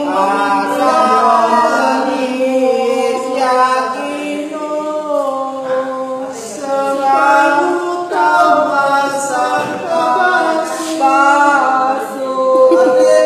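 Several voices singing a song together without instruments, holding and sliding between notes.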